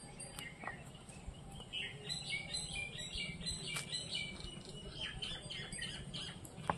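Birds chirping: many short, quick calls that come thicker from about two seconds in, over a low steady rumble.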